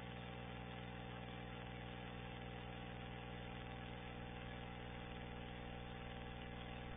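A steady low hum made of several constant pitches, unchanging throughout.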